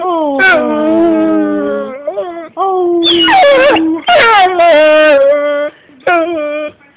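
A dog howling and whining in a string of about five drawn-out calls that slide and mostly fall in pitch, the longest near the start and in the middle.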